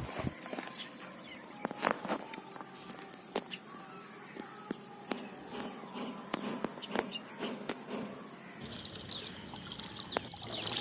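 Outdoor ambience with steady high-pitched insect buzzing and many short scattered clicks and small water sounds. The background noise gets louder near the end.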